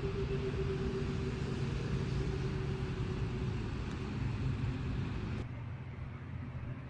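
Steady outdoor rumble with a low, even engine-like hum from a running vehicle. It cuts off abruptly about five and a half seconds in.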